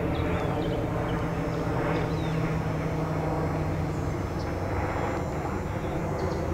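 Shortwave hiss and static from a Tecsun PL-660 portable receiver's speaker as it is tuned upward in steps through the 15 MHz band, with no station locked in. A steady low hum runs underneath, and a few faint short whistles sound higher up.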